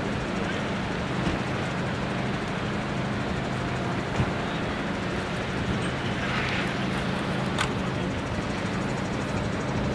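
Steady low rumble of a running vehicle engine, with a short knock about four seconds in and a brief hiss around six and a half seconds.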